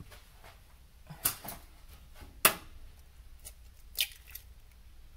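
Eggs being cracked open: three sharp knocks about a second and a quarter apart, the middle one the loudest, with a few fainter clicks between.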